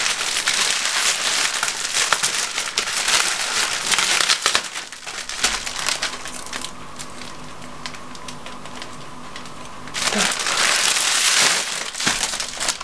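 Metallic foil wrapping of a giant chocolate Easter egg crinkling and rustling as hands pull and peel it off. The crinkling dies down for a few seconds past the middle, then picks up again near the end.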